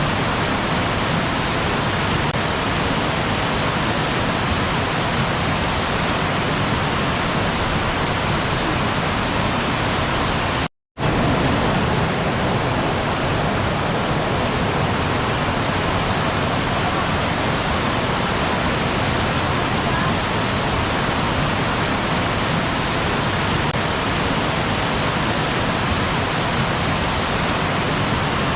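Waterfall rushing, a steady, even roar of falling water. It cuts out to silence for a split second about eleven seconds in, then picks up again unchanged, like a join between two recordings.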